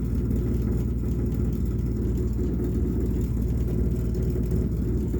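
A steady low rumbling noise, like a running engine, with no change in level and no clear rhythm.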